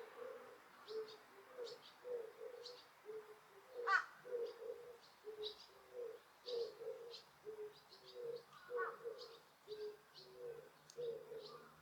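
Pigeons cooing over and over in short low notes, with small birds chirping high above them and one louder rising call about four seconds in.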